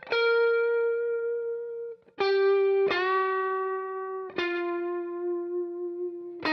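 Clean electric guitar, a Fender Stratocaster played through a Vox AC15 tube amp: four single notes picked one after another and left to ring, each held a second or more and the later ones lower in pitch. These are notes in a string-bending lesson.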